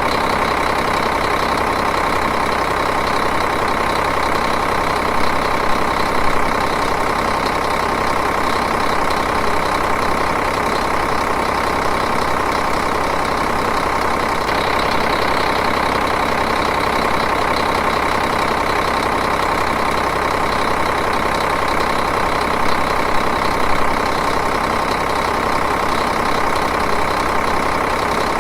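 Diesel engine idling, running steadily and evenly.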